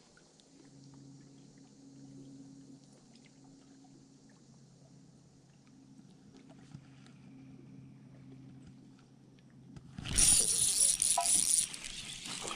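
Low steady hum of an electric trolling motor with a few faint ticks; about ten seconds in, a sudden loud rush of noise and handling as a fish strikes and is hooked, easing off a little near the end.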